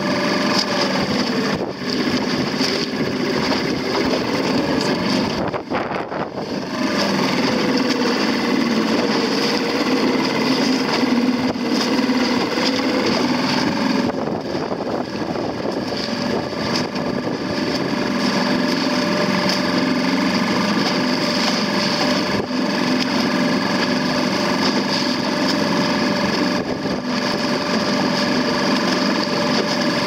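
Motorboat engine running steadily while towing, with water rushing past and wind on the microphone.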